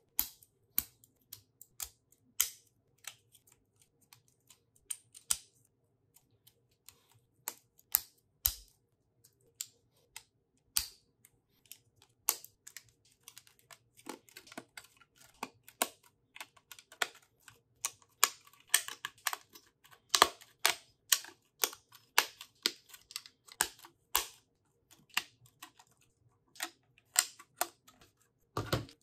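Lego plastic pieces clicking and snapping together as they are pressed into place, with small pieces rattling as they are handled. The clicks are sharp and irregular and come thicker in the second half.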